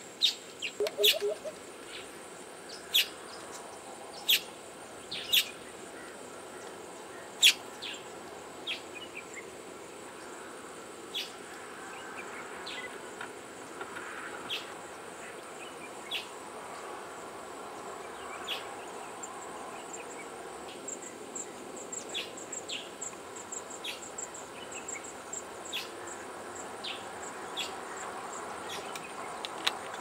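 A steady high-pitched insect trill with sharp, short bird chips scattered over it, loudest and most frequent in the first few seconds, and a brief low pulsing note about a second in.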